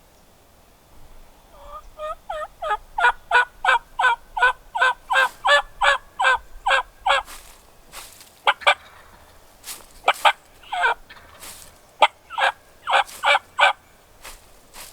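Turkey yelping: a long run of rapid, pitch-bending notes at about four a second, then several shorter groups of the same notes.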